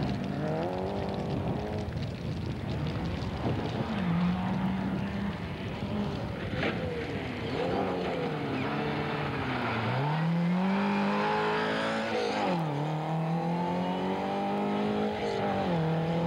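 Rally car engine revving hard on a gravel stage, its pitch climbing and falling repeatedly with gear changes and lifts off the throttle. There is a sharp drop in revs about three-quarters of the way through. The car comes through the bend and pulls away.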